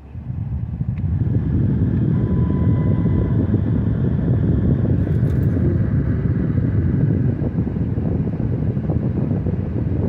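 The 2006 Dodge Charger's cabin blower fan is switched up to high with the A/C on. It comes up within about half a second to a loud, steady rush of air. The A/C compressor is locked up.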